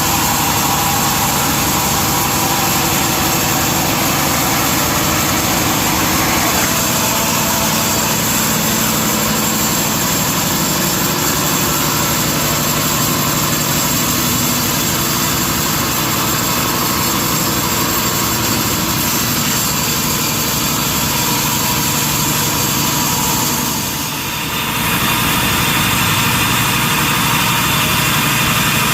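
Sawmill machinery running steadily, a loud dense mechanical noise that dips briefly about three-quarters of the way through.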